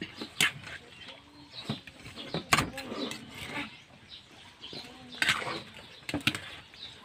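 Metal spoon stirring a wet fish-and-cucumber salad in a stainless steel bowl, clinking and scraping against the bowl's side. There are about five sharp clinks, the loudest about two and a half seconds in.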